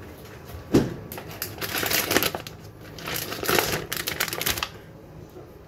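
A knock about a second in, then crackling and rustling in two stretches as a plastic pack of sliced bresaola is pulled open by hand.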